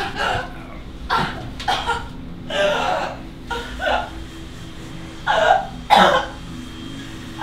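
A person coughing and gasping in short, harsh bursts, roughly once a second, like someone choking. A steady low hum runs underneath.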